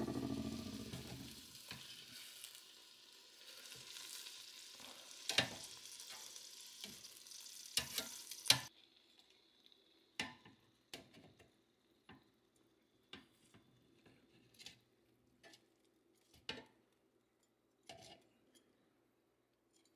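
Bacon-wrapped steak sizzling in a pulled-out air fryer basket, the hiss cutting off suddenly about two-thirds of the way through. Metal tongs click against the basket and meat a number of times as the pieces are turned over.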